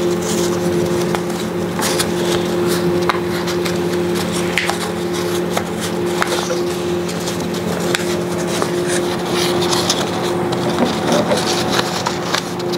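Sheet of origami paper crackling and rustling in short bursts as it is unfolded and refolded by hand, over a steady hum.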